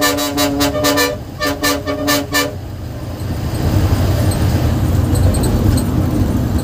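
Bus horn honked in rapid short blasts, two quick bursts in the first couple of seconds, then the bus's engine and road noise while cruising on the highway.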